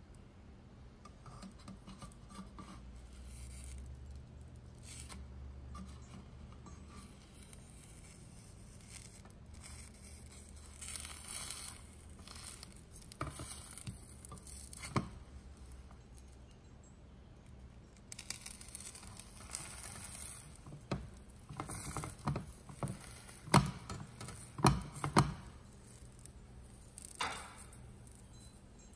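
A slotted plastic spatula scraping and knocking against a square nonstick frying pan as a thin egg omelette is folded over and rolled. The scrapes are scattered, with several sharper knocks in the second half.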